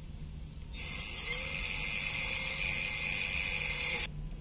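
Power drill boring a hole through a metal patch plate. The drill starts a little under a second in, its whine rising as the motor spins up, runs steadily, then stops suddenly near the end.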